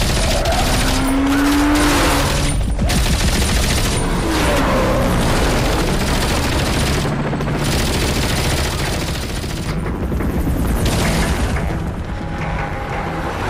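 Automatic gunfire from a helicopter in bursts, with short breaks between them, in a dense action-film soundtrack mix over music.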